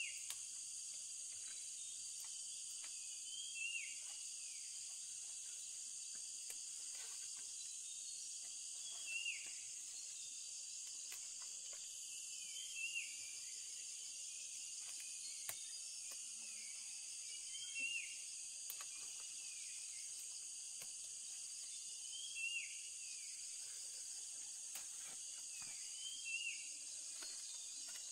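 Steady high-pitched insect chorus of crickets or cicadas, with a bird giving a short falling call about every four seconds, seven times in all; the calls are the loudest sounds.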